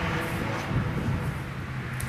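Engine of a small hatchback approaching at speed along the track, heard from a distance as a steady engine note.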